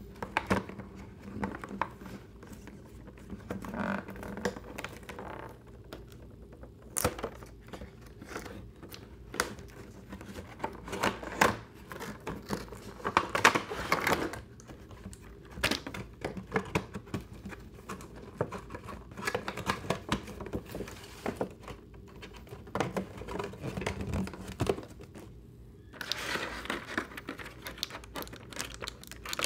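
Cardboard toy box and clear plastic tray being handled and opened: scattered clicks, scrapes and rustles of cardboard and plastic, with a denser stretch of crinkling near the end.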